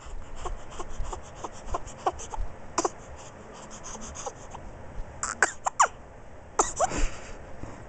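A three-week-old baby with the hiccups: short, sharp hiccup sounds and small squeaks, loudest about five to six seconds in, over a run of soft quick clicks about three a second.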